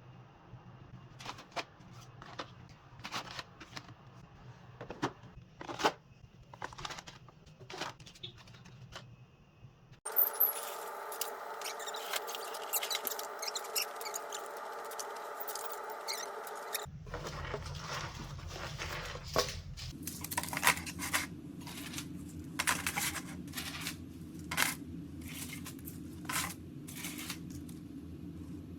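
Small items and packaging being handled and sorted: scattered clicks, taps and rustles, with a steady background hum that changes abruptly a few times.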